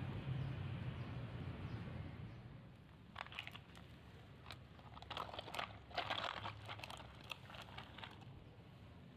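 Faint crinkling and clicking in small clusters, mostly between about three and seven seconds in, over a low hum that fades out after the first couple of seconds.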